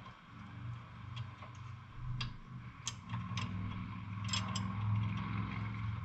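Hand wrench working the nut on a Jeep sway bar link: a handful of separate light metallic clicks and ticks, over a steady low hum.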